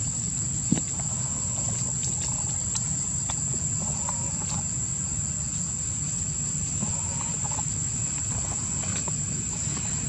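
Steady, high-pitched insect chorus droning over a low background rumble, with one sharp click about a second in and a few faint ticks and rustles.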